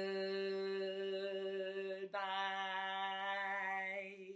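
A woman singing a very slow, drawn-out "goodbye": two long held notes on about the same pitch, the second syllable starting about two seconds in.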